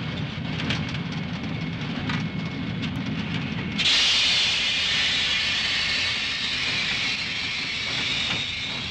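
Steam locomotive running: a low rumble with scattered clicks, then about four seconds in a loud hiss of steam starts suddenly and keeps on. Faint rhythmic strokes come in near the end.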